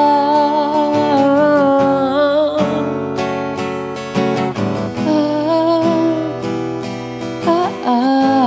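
Acoustic guitar strummed live under a slow love song. A singer holds a long, wavering note near the start, and a few more sung notes come later over the guitar.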